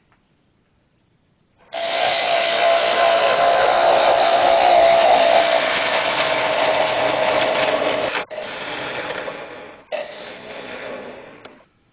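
Near silence at first, then a freshly sharpened bowl gouge cutting the inside of a spinning sycamore bowl on a wood lathe: a loud, steady hiss of shavings with a steady whine running through it. This is a finishing cut to take out tool marks. It breaks off briefly twice in the second half and runs quieter near the end before stopping.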